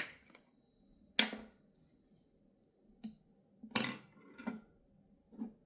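A few short knocks, clicks and brushing noises of a drink container being handled, the loudest a bit under four seconds in, with quiet gaps between.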